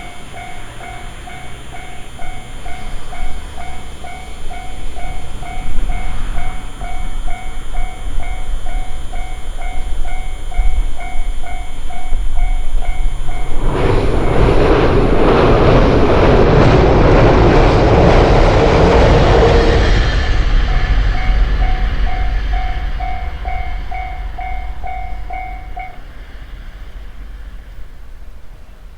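Japanese level-crossing warning bell ringing its repeating 'kan-kan' about twice a second while a low rumble builds. Midway an electric train passes loudly over the crossing, its wheels clattering on the rails and drowning out the bell for several seconds. The bell then rings on and stops near the end, the sign that the crossing is clearing.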